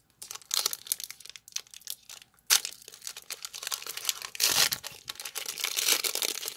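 Pokémon trading cards being handled and slid one by one through a stack in the hands, making a dense run of crisp papery rustles and clicks with a few louder snaps.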